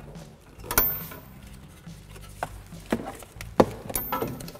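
Several light clicks and knocks of a bungee cord being hooked around a strut coil spring to hang a brake caliper, the loudest a little over three and a half seconds in.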